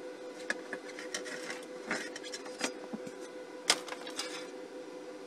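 Steady hum of a powered-up show laser projector's cooling fan, with scattered light clicks and knocks from hands handling its metal case, the sharpest a little before the end.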